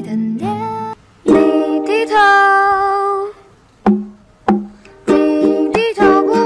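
Background music: a song sung over ukulele, with a brief break about a second in and a few single plucked notes in a quieter stretch midway.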